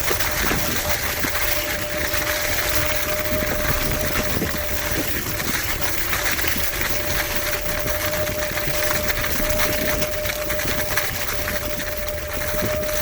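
Wolf Warrior X GT electric scooter being ridden, its hub motors giving a steady high whine under a continuous rush of wind and tyre noise.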